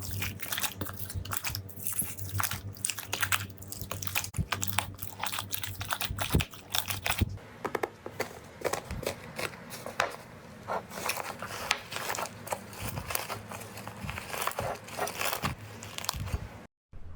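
Slime being handled close to the microphone, giving a dense, uneven run of crackling and popping clicks, with a brief break near the end.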